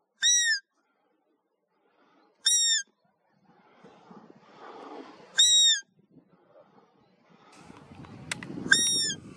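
Hunter's roe deer call imitating a doe's contact call to lure a roebuck in the rut: four short, high-pitched calls about every two and a half to three seconds, each rising and then dropping in pitch. A low rustling noise grows near the end.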